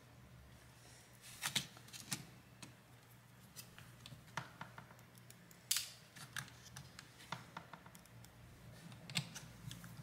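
Faint, scattered small clicks and taps of a screwdriver and tiny screws against a netbook's plastic and metal chassis as its daughter board is screwed back in, the loudest taps about one and a half, two and six seconds in, over a faint low hum.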